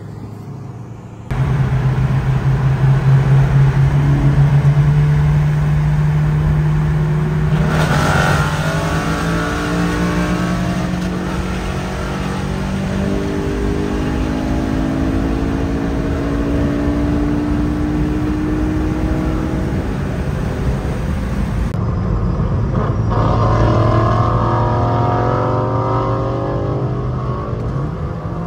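Car engine and exhaust pulling at highway speed over steady road and wind noise. The engine note climbs slowly over several seconds as the car accelerates. The sound changes abruptly about a second in and again near 22 s, where the clips are cut together.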